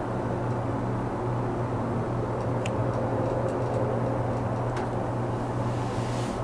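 Steady low mechanical hum heard inside an enclosed Ferris wheel gondola, with a couple of faint light clicks partway through.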